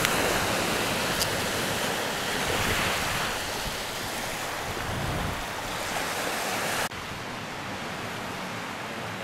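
Surf washing on a beach with wind on the microphone. About seven seconds in it cuts suddenly to a quieter, steadier wash of surf.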